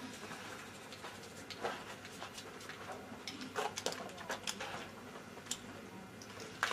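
Faint, scattered clicks and light knocks from the shooters handling their black powder pistols in the firing bays.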